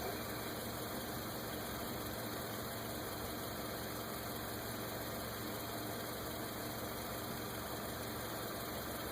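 A car engine idling steadily, an unchanging hum with no revving or knocks.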